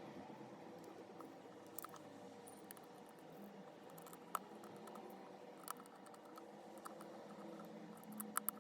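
Faint, scattered small clicks and taps of tools working on a smartphone's internal plastic bottom cover as it is taken off, with a sharp double click near the end.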